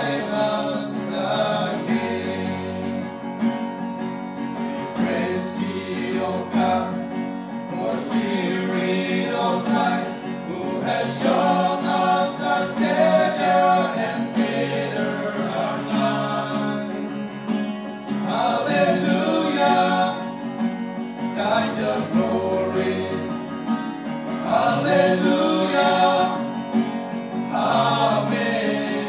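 Male vocal group singing together into microphones, accompanied by a strummed acoustic guitar.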